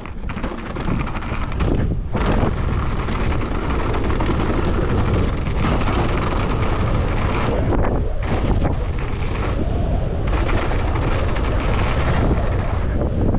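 Wind rushing over the microphone and tyres rolling over a dirt trail as a mountain bike descends, with scattered rattles and knocks from the bike. The rush dips briefly twice.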